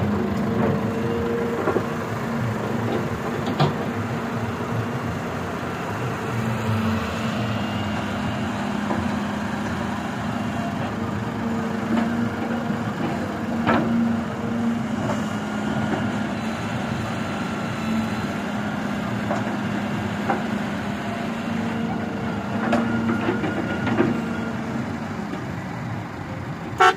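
Hitachi wheeled excavator's diesel engine running steadily as it digs and loads soil into a tractor trolley, with a few sharp knocks now and then.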